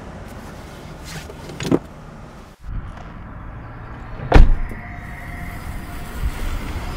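Toyota Prius hybrid car door shutting with a heavy thump about four seconds in, after a softer knock. The car then moves off with a faint steady whine.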